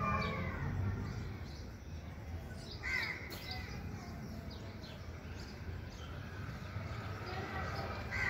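Crows cawing a few times, a few seconds apart, over a steady low rumble.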